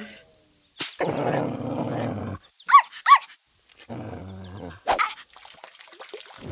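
Small dog growling, then two short high yaps, then growling again.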